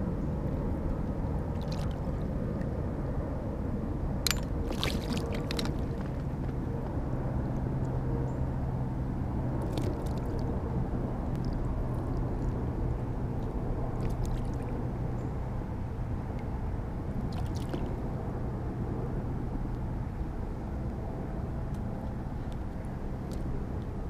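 Hooked largemouth bass splashing at the water's surface in several short bursts as it is landed, the busiest cluster about four to five seconds in, over a steady low rumble.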